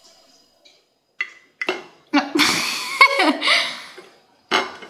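A person laughing in short, breathy bursts, loudest from about two to four seconds in.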